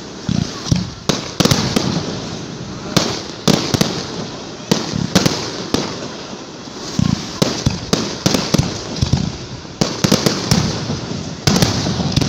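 Fireworks display: aerial shells bursting overhead in a quick, irregular barrage of sharp bangs and cracks, often several in a second, each echoing.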